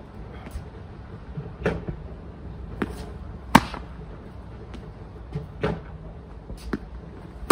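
Tennis balls struck with a racket and bouncing on a hard court: a string of sharp pops about a second apart, the loudest about three and a half seconds in.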